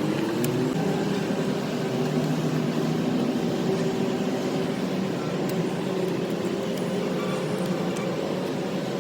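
An engine running steadily, its pitch rising a little about a second in and then holding.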